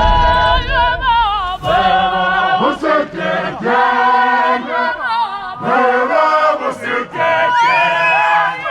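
Voices singing in a cappella harmony, long held notes with vibrato and sliding pitches, no instruments.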